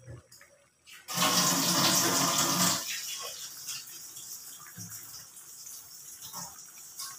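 Water boiling in an aluminium saucepan on a gas burner, a rolling bubbling hiss. It is loudest for about two seconds starting a second in, then settles to a quieter steady bubbling.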